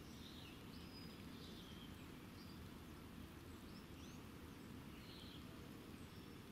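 Faint birds chirping: several short chirps and whistles scattered through, over a steady low rumble of background noise.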